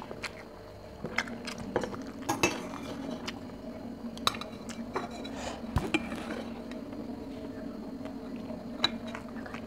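Chopsticks tapping and scraping against a stainless-steel rice bowl: scattered light clicks over a steady low hum.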